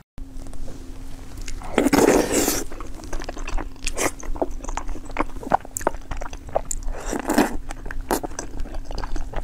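A person eating close to the microphone: wet biting and chewing mouth sounds made of many short clicks, with two longer, louder noisy bursts about two and seven seconds in.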